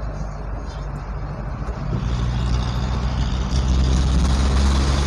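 Engine of a delivery vehicle running on the road, a steady low hum that grows louder about two seconds in and again a little later.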